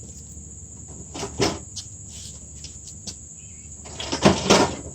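Steam trap parts being handled: a few short knocks and rustles about a second in, then a louder cluster of knocks near the end, over a steady high-pitched whine.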